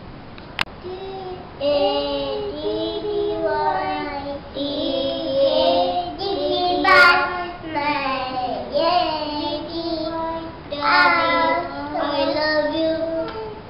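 A small group of young children singing a song together in high, childish voices, with held notes.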